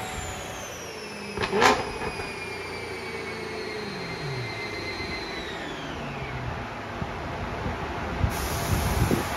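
BMW E92 M3 V8 on a chassis dyno, coasting down after a pull: a whine from the spinning drivetrain and rollers falls slowly in pitch. A single sharp crack comes about one and a half seconds in, and a few low thumps near the end.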